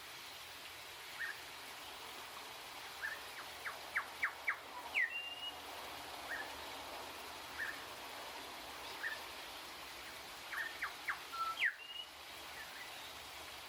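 Grey shrike-thrush singing: single clear whistled notes every second or two. Twice the notes build into a quick run that ends in a sharp upward-sweeping whistle. A steady hiss runs underneath.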